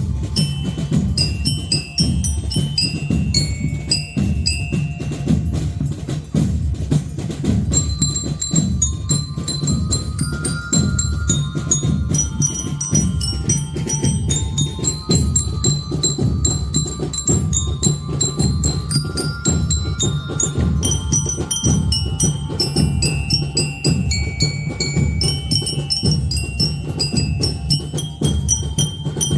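Marching band of bell lyres (liras) and drums playing a tune: the lyres' bright bell notes carry the melody over a steady drum beat.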